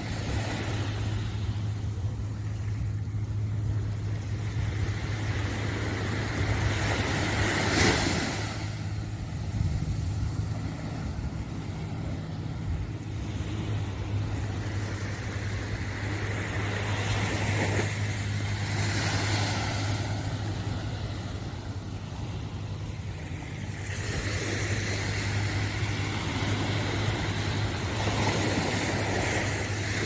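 Small waves breaking and washing up a sandy beach, the hiss of the surf swelling and fading every few seconds, over a steady low hum.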